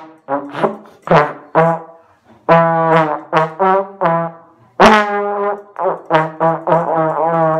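Slide trombone played loudly: a few short blasts, then longer held notes that step up and down in pitch as the slide moves.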